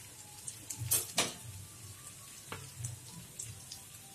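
Chicken 65 in a non-stick frying pan on the stove, sizzling faintly with scattered small crackles. There are two sharp louder clicks about a second in and another a little past halfway.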